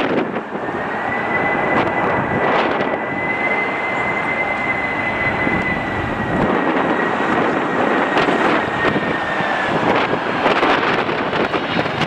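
Delta Boeing 767's jet engines on final approach: a steady rushing engine noise with a thin high whine that holds from about half a second in until near the end, as the jet passes low over the runway. Wind gusts buffet the microphone, mostly near the end.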